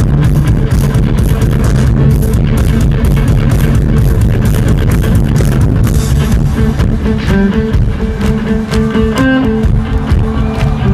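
Rock band jamming live, heard from the crowd on a loud, distorted audience recording: heavy bass guitar and a steady drum beat, with electric guitar notes ringing out and held over the second half.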